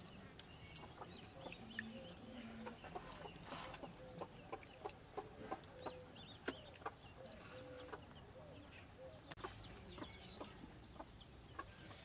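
Domestic hens clucking quietly in short, separate calls, with a few higher chirps and scattered faint clicks.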